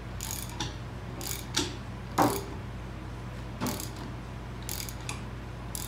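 Ratchet wrench clicking in several short strokes, the loudest about two seconds in, as a lug nut on a stud installer is turned to draw a new lug stud into the rear wheel hub. A steady low hum runs underneath.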